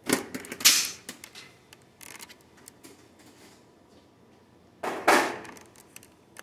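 Clicks and clacks of hand tools and parts being picked up and set down on a workbench, in two bursts: one at the start and one about five seconds in, with a few light ticks between.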